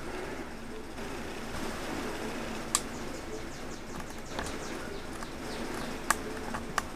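A few sharp, light clicks as pellet tins and ammunition are handled and packed into a carrying case, over a faint steady background hum.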